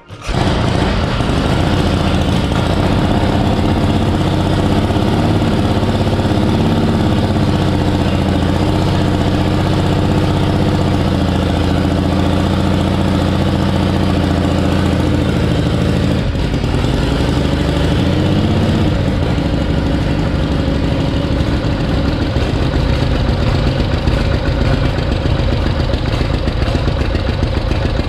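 1951 Harley-Davidson FL Panhead V-twin kick-started, catching at once and settling into a loud, steady idle. The idle rises and falls briefly a few times.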